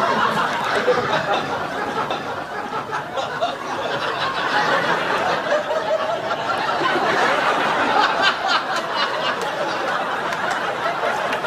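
A studio audience laughing, a steady unbroken wash of crowd laughter.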